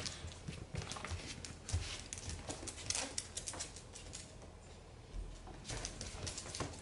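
A small dog's claws clicking and pattering on a hard floor as she trots and turns about, mixed with a person's footsteps. The clicks come irregularly and thin out a little past the middle.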